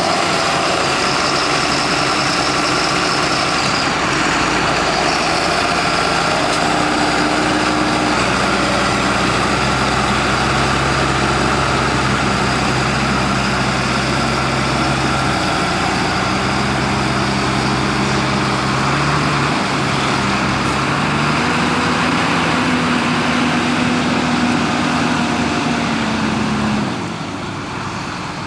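Heavy diesel engines of corn silage harvesting machinery running under load, a forage harvester and tractors hauling trailers. The engine pitch shifts several times, and the sound drops noticeably near the end.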